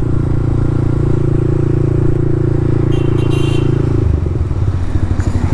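Motorcycle engine running at steady revs while riding, its exhaust note dropping lower about four seconds in as the throttle eases off.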